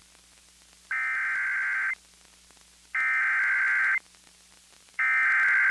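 Emergency Alert System SAME header: three one-second bursts of shrill digital data tones, a second apart, that open an emergency alert broadcast, here a severe thunderstorm warning.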